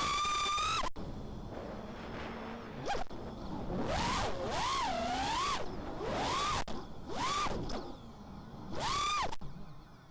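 FPV racing quadcopter's brushless motors (ZMX 2206 2300 kV on Dal 5045 three-blade props) whining as the throttle is punched and chopped. The whine holds high at first, drops suddenly about a second in, then swoops up and down several times. It is heard through the onboard camera.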